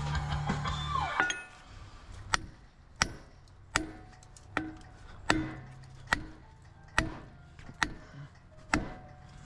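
A hammer striking a scrap transformer over and over, blow after blow about once every 0.8 seconds, starting about a second in: the transformer being beaten apart by hand to free its copper windings.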